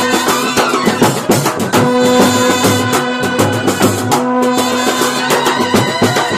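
Kerala band set (a street brass band) playing a festive tune, long held notes from the horns over fast, busy drum and cymbal beats.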